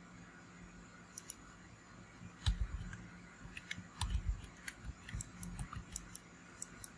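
Faint, sharp clicks of a computer mouse and keyboard, a dozen or so, coming more often in the second half, with two low thumps about 2.5 and 4 seconds in.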